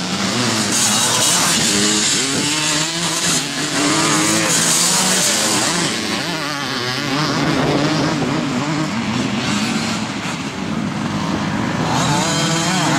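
Engines of vintage twin-shock motocross bikes revving on the track, with several engine notes overlapping and rising and falling in pitch as the riders open and close the throttle.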